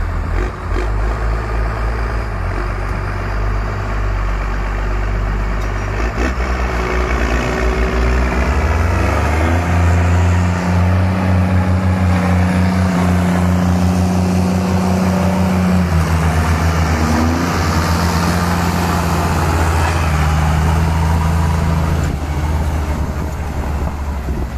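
Case MX170 tractor's diesel engine working hard under load while towing a stuck Massey Ferguson and trailer through mud. The engine revs up a few seconds in, holds a high, steady note for most of the pull, and settles back near the end.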